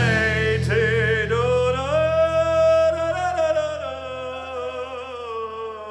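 Metal band playing live: a long held, wavering sung note from the vocalist over a sustained low chord, easing off toward the end.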